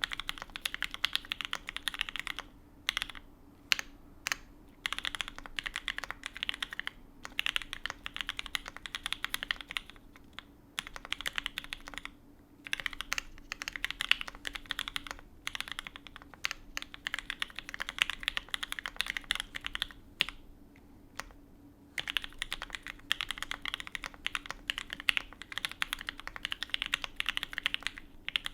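Fast typing on a custom Alice-layout mechanical keyboard with lubed and filmed H1 switches on a carbon fibre plate and GMK keycaps: rapid runs of key clacks broken by a few short pauses, the longest about two seconds.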